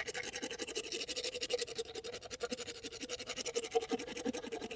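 Hand-held dental float (metal rasp) filing a donkey's cheek teeth in fast back-and-forth strokes: a rapid, even scraping rhythm of about ten strokes a second, over a faint steady hum.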